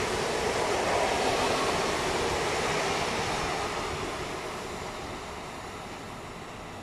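Electric passenger train running away along the track, a steady rumble of wheels and motors that fades as it goes, from about three seconds in.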